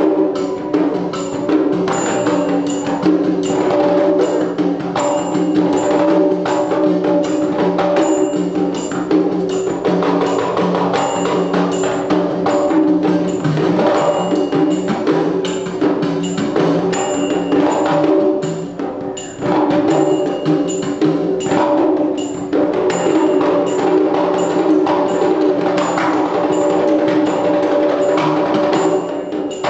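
Kerala temple-art percussion for Nangiarkoothu: mizhavu copper pot drums and edakka hourglass drum playing continuously, with small hand cymbals ticking a steady beat about twice a second.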